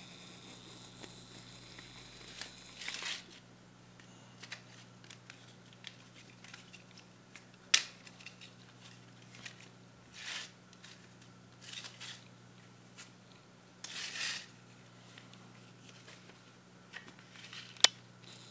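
Handling of a plastic DVD case and its paper booklet: scattered short rustles and clicks, with two sharp plastic clicks, the loudest about eight seconds in and near the end, over a faint steady low hum.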